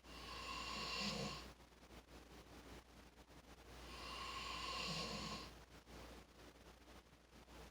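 Snoring: two long snores about four seconds apart, each swelling over a second or so and then dropping off.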